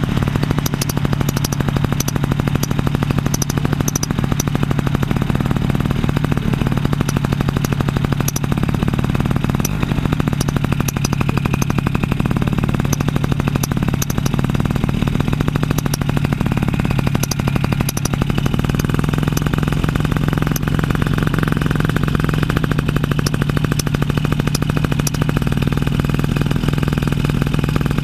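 Paramotor engine running steadily in flight, a loud even drone with a strong low hum.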